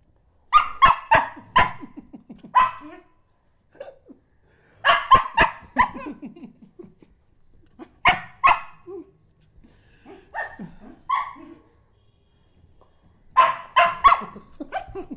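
Small fluffy white dog barking in quick bursts of two to four sharp barks, with short pauses between the bursts.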